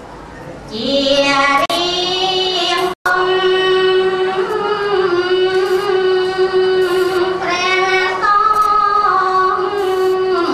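A woman's solo voice singing into a microphone in long, drawn-out held notes that slide slowly from pitch to pitch, in a melismatic chanting style; the sound drops out for an instant about three seconds in.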